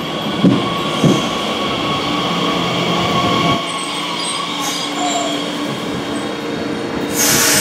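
Bombardier Talent 2 electric multiple unit moving along the platform: a steady whine from its electric traction equipment with wheel squeal over the running noise. Two short thumps about half a second and a second in, and a brief burst of hiss near the end.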